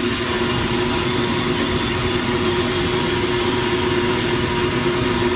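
Large stainless-steel commercial juice machine running with a steady motor hum while blending pineapple for juice.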